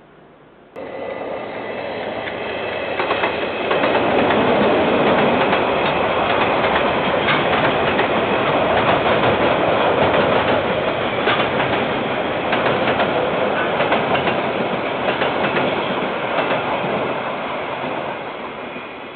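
Train of rail wagons passing close by, its wheels clattering over the rail joints in a run of sharp clicks above a steady rumble. The sound comes in abruptly about a second in, is loudest in the middle and fades near the end as the train moves away.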